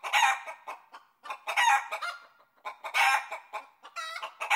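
Chickens clucking in repeated cackling bursts, about every second and a half, with short clucks between.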